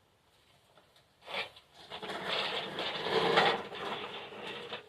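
Toy bubble lawnmower rattling as it is pushed along, with a short clatter about a second in, then a steady run of about three seconds that stops just before the end.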